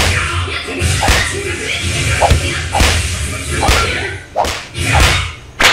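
Pool water splashing in a water fight: a quick run of sharp slaps and splashes, about one every half second to second, as arms are swept through the water.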